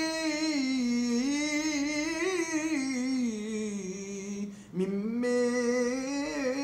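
A man's solo voice chanting Torah cantillation in the Constantine (Algerian Jewish) tradition, drawing out a single word in a long ornamented melisma with a wavering, winding pitch. It breaks off briefly about four and a half seconds in, then the melody resumes from a lower note.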